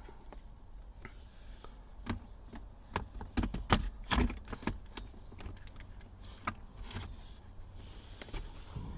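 Hard plastic interior console trim pieces being handled and worked on, giving scattered sharp clicks and knocks, with the loudest cluster around the middle.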